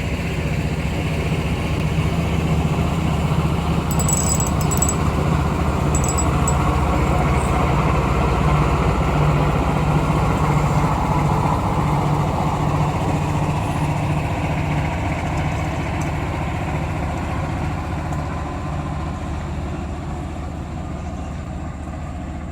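Small boat's motor running steadily, growing louder toward the middle and then slowly fading.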